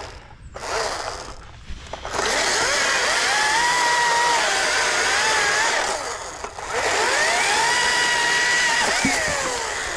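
Ryobi RY40509 40-volt battery chainsaw cutting through a fallen tree branch. The electric motor spins up about two seconds in to a high whine over the noise of the chain in the wood, its pitch wavering as the chain bites. It stops briefly just after the middle, spins up again, and winds down near the end.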